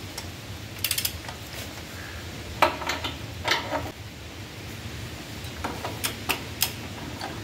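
Socket wrench ratcheting in a quick run of clicks about a second in, then a few heavier metal knocks as a half-inch torque wrench's socket is fitted onto a bolt, and several single ratchet clicks near the end as the bolt is tightened.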